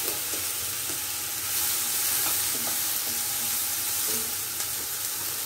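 Sliced red pepper and spring onion sizzling in hot olive oil in a frying pan, with a steady hiss. A wooden spatula stirs them, scraping and tapping against the pan now and then.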